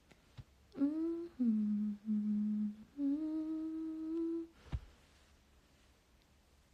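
A young woman humming a short tune with her lips closed: a rising note, then a lower note held twice, then the higher note held for more than a second. A single short knock follows.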